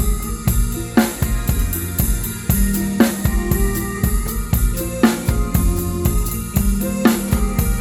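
Live band playing an instrumental passage of a Thai luk thung song, led by a drum kit: a steady beat of kick, snare and hi-hat with cymbal accents about every two seconds, over bass and sustained pitched instruments.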